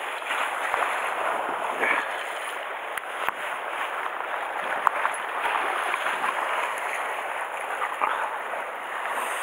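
Sea surf washing against a rocky shore, a steady rushing hiss, with a few sharp clicks about three and five seconds in.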